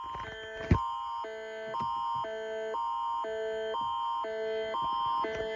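Canadian Alerting Attention Signal of an Alberta Emergency Alert: an electronic tone switching between two chords about twice a second over a steady high tone, announcing an evacuation alert. A sharp click sounds about three-quarters of a second in, and the tone cuts off suddenly at the end.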